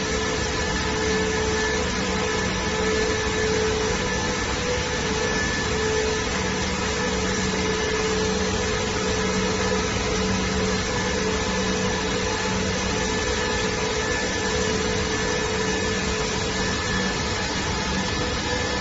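Corrugated cardboard production line running: a steady machine whir and hum with a few constant tones, unchanging throughout.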